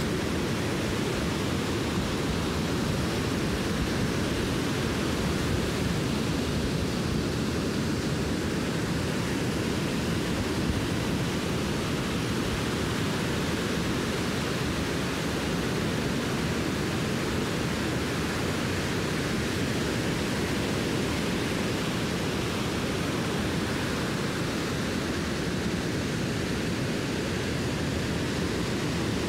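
Surf breaking on a sandy beach: a steady, even rushing noise with no single wave standing out.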